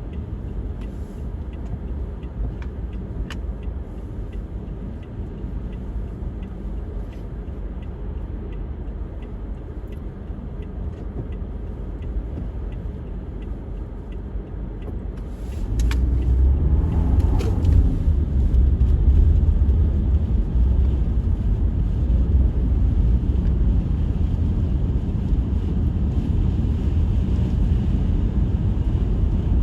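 Blizzard wind buffeting the microphone, a steady low rumble that grows clearly louder about halfway through with a brief crackle as a stronger gust hits.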